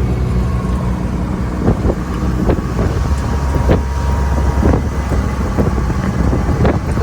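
A Kubota farm vehicle's engine running steadily on the move, with frequent irregular knocks and rattles from the vehicle as it drives and some wind on the microphone.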